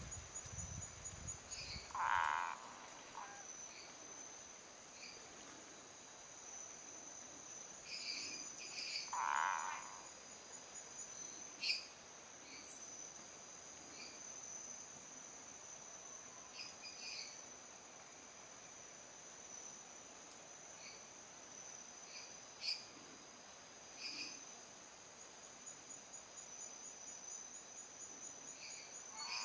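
A male Boana multifasciata tree frog gives its territorial call, aimed at a rival male nearby. There are two loud calls, about two and nine seconds in, and a third begins right at the end. Between them, Dendropsophus minutus tree frogs call in short, high notes over a steady high-pitched drone.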